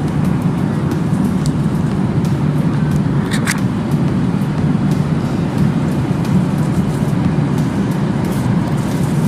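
Steady low rumble of an airliner cabin in flight, engine and airflow noise, with a few faint clicks, the sharpest about three and a half seconds in.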